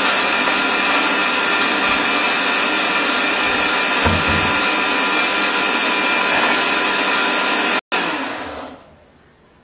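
Countertop blender running steadily as it blends a milk-and-yogurt smoothie; near the end it is switched off and the motor runs down and stops.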